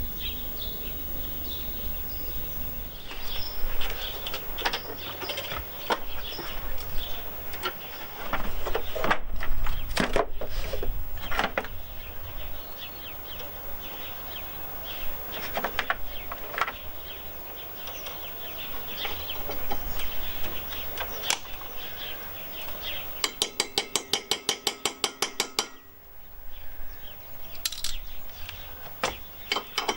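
Hand tools from a socket set clinking and tapping on metal while a rotary lawnmower's blade is being unbolted and changed. Near the end comes a quick even run of ratchet clicks, about eight a second for two or three seconds.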